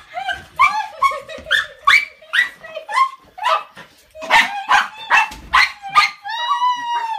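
A puppy yelping and whining in excitement at an owner's return: a quick run of short, high yelps, about two a second, then a longer held whine near the end.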